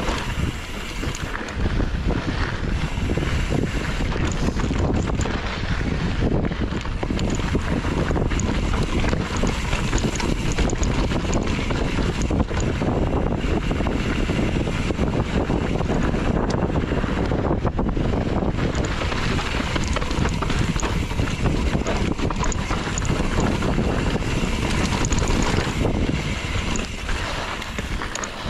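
Wind buffeting the microphone of a camera on a moving mountain bike, over a constant rumble of tyres on the trail, with frequent short clicks and rattles from the bike on rough ground.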